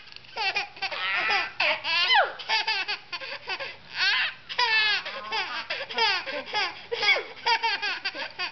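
Baby laughing: a run of short, high-pitched giggles and squeals, one after another, with quick rises and falls in pitch.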